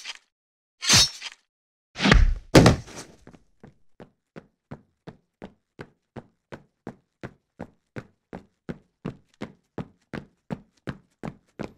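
Heavy thuds about two seconds in, followed by quick, evenly paced footsteps of someone running, about three to four steps a second.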